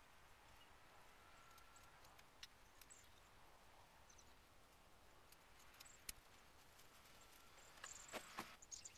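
Near silence with faint scrapes and ticks of a knife cutting a green trembling aspen spoon blank. A short cluster of sharper clicks and knocks comes near the end as the tools are handled.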